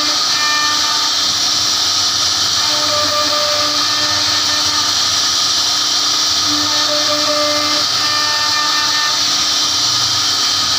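CNC router spindle running and its bit cutting into wood: a steady high-pitched hiss, with a pitched whine that comes and goes every second or two.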